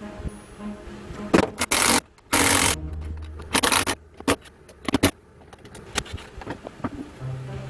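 Three short scraping strokes, each about half a second long, in the first half, among scattered light knocks and clicks.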